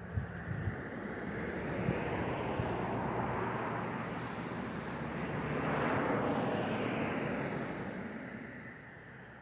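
A vehicle passing by: a rushing noise that swells to a peak about six seconds in and then fades away.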